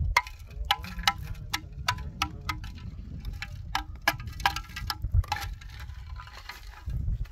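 Small metal bells jingling irregularly, several quick rings a second, over a steady low rumble.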